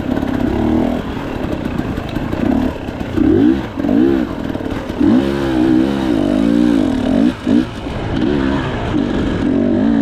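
KTM 300 XC-W two-stroke dirt bike engine revving up and down over and over, its pitch rising and falling with each throttle blip.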